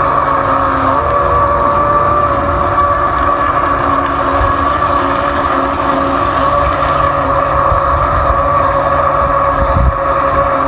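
A small motor running steadily: an even whine with a lower hum under it, and a brief low bump near the end.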